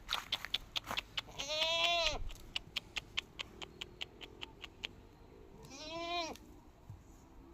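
A goat bleating twice, a wavering call about a second and a half in and a shorter one near the end, over a run of sharp clicks at about four a second.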